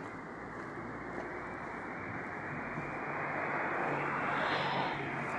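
Street traffic: a motor vehicle's engine hum and tyre noise growing louder and peaking about four and a half seconds in, as the vehicle passes.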